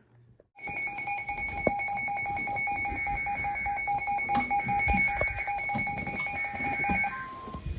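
Emergency alert attention tone: two steady high tones sounding together, starting about half a second in and cutting off a little after seven seconds, followed by a brief single tone. It heralds a flash flood warning. Scattered clicks and low noise sound under it.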